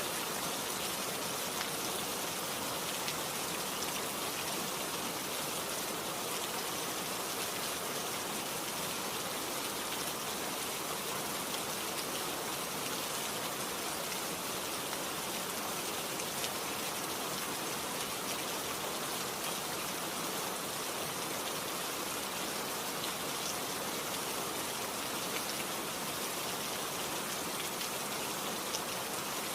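Steady rain, with fine drop ticks scattered through an even hiss of rainfall.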